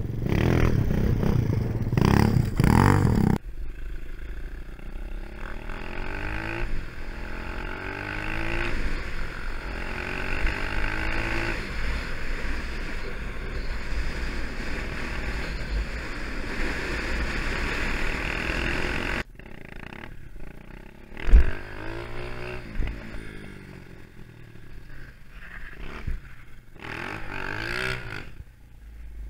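250cc four-stroke dirt bike engine heard from the bike, pulling through the gears: the pitch climbs, drops at each shift and climbs again. The first few seconds are louder and rougher. One sharp knock stands out about two-thirds of the way in.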